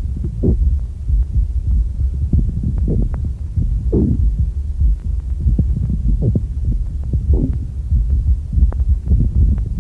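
Stethoscope recording of a coarse pleural friction rub: short rubbing sounds over a low rumble, with louder strokes about every three and a half seconds. The rub is the sign of inflamed pleural layers rubbing against each other.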